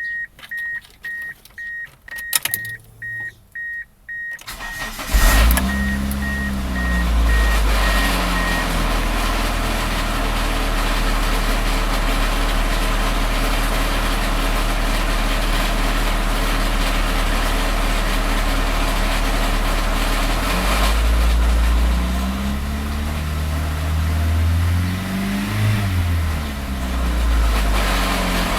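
A car's warning chime beeps rapidly, then the engine cranks and starts about five seconds in and runs, revved up and back down once and then several more times near the end. The owner reports a knocking/grinding noise at revs between 1,000 and 3,000 rpm that almost disappears above about 2,000 rpm.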